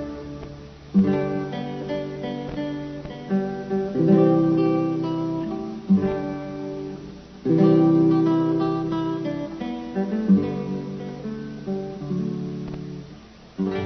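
Closing music of a radio drama: acoustic guitar chords strummed and left to ring and fade, with single plucked notes between them. Loud chords fall several times, a few seconds apart.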